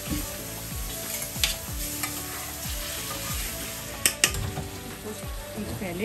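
Hot oil sizzling in a pan as food fries and is stirred. There are sharp utensil clinks against the pan about a second and a half in, then twice in quick succession about four seconds in.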